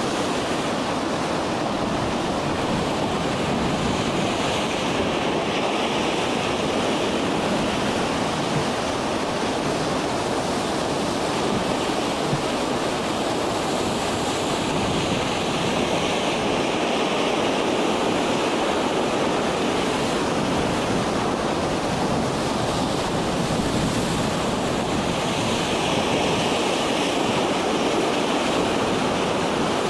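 Storm seas: a steady rush of breaking waves and surf with wind, swelling now and then as waves break.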